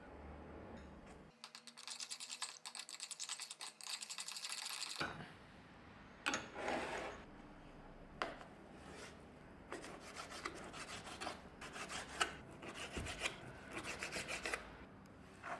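Hand food preparation in a kitchen: rapid rubbing and scraping strokes in two long runs, with scattered single strokes between them.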